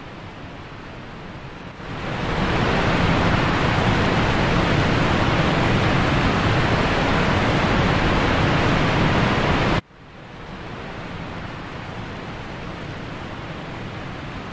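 A steady rushing noise effect, like wind or a roaring blaze. It swells about two seconds in, holds loud, then cuts off suddenly near the ten-second mark and goes on at a lower level.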